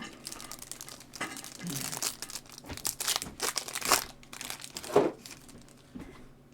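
A foil trading-card pack wrapper being torn open and crinkled by hand, a dense crackle with a few sharper rips near the end.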